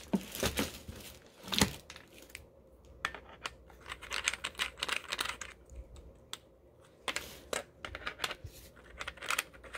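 Handling noise from a pressure washer's high-pressure hose and plastic trigger gun: irregular clicks and knocks, with some rustling, as the hose's threaded coupling is fitted onto the gun's brass inlet.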